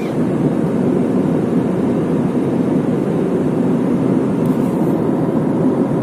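Steady engine and airflow noise inside the cabin of an Airbus A320-family jet airliner in its climb after takeoff, a constant, even rush with a faint steady hum beneath it.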